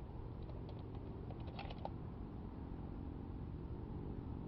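Faint metallic clicks and a brief rattle between about half a second and two seconds in, from the Marlin X7VH bolt-action rifle being handled, over a steady low rumble. No shot is fired.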